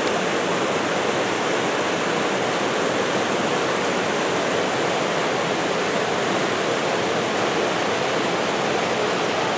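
Fast mountain stream rushing over boulders and through small rapids: a steady, even noise of running water.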